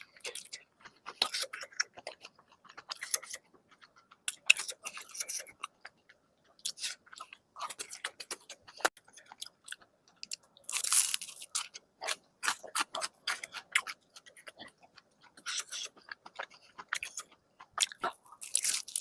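Close-miked chewing and crunching of crispy food in irregular bouts, with short pauses between bites and one longer crunchy stretch of about a second near the middle.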